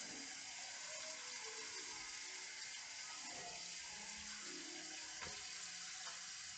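Kitchen tap running steadily, water splashing into the sink as the sink is rinsed out.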